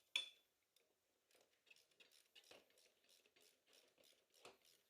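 Faint, irregular metallic clicks and taps from a wrench tightening the front brake caliper bolts, with one sharper click just after the start and another a little louder near the end.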